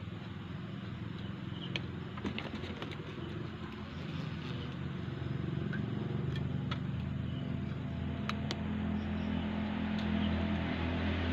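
A low engine drone that grows gradually louder, with a few light clicks and taps of small metal flashlight parts being handled.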